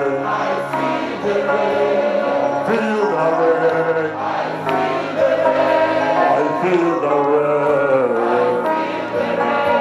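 Music with singing voices: held, gliding sung notes over a steady musical backing.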